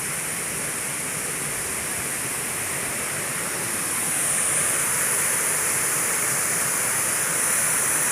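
Waterfall: a steady rush of falling water that grows louder about four seconds in.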